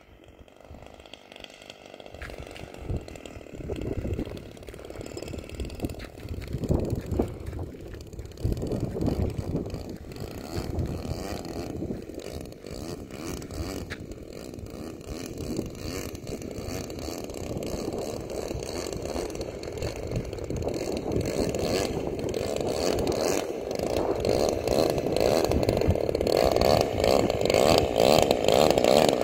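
Motor of a radio-controlled model airplane running with a steady buzz as the plane flies low, lands and taxis in. It grows louder toward the end as the plane comes up close.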